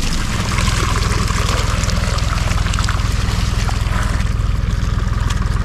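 Water pouring in a steady stream over the low, steady hum of an engine running throughout.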